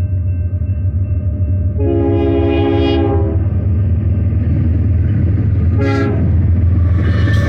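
Air horn of an approaching BNSF freight train's lead locomotive, a GE ES44AC. It sounds one long chord about two seconds in and a short blast about six seconds in, following another long one just before. The pattern is the long, long, short of a grade-crossing warning. Throughout there is a steady low rumble from the locomotives' diesel engines, and near the end the noise of the oncoming train rises.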